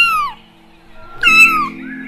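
Two short, high-pitched animal calls, each falling in pitch. The first ends just after the start and the second comes about a second and a quarter in, over steady low background tones.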